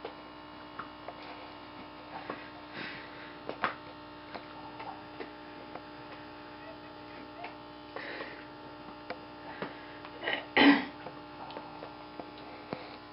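A steady electrical hum under faint scattered rustles and clicks as a rat terrier tugs stuffing out of a plush toy, with one short, louder noise about ten and a half seconds in.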